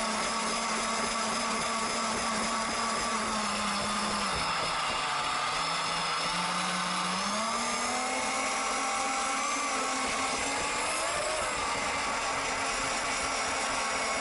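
Motor of a Thunder Tiger Bandit RC speedboat whining steadily on the water. Its pitch drops about four seconds in as the throttle comes off, then climbs back up over the next few seconds.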